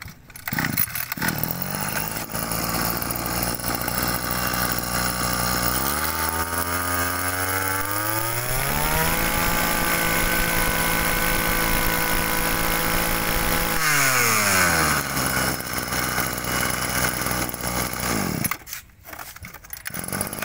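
Kawasaki TG20 two-stroke brush-cutter engine starting, then idling steadily. After several seconds it is revved up to high speed and held there, drops back to idle, and is shut off near the end.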